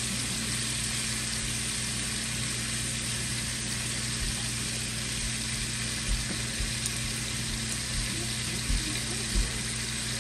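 Bacon pieces sizzling steadily as they fry in a nonstick skillet, over a steady low hum. A few soft low thumps come in the second half.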